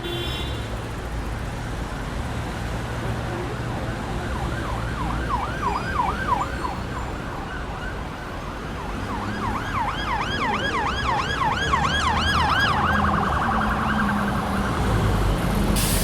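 Emergency vehicle siren in fast yelp mode, sweeping up and down about four times a second, over a steady rumble of road traffic. The siren comes in two spells, the second louder and ending in a quicker warble.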